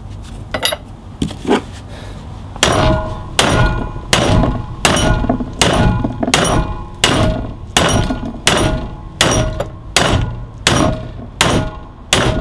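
Hammer blows driving a heat-softened old bush out of a Land Rover Discovery 2 panhard arm clamped in a steel bench vise. A couple of light taps come first, then a steady run of hard, ringing metal-on-metal strikes, roughly three every two seconds.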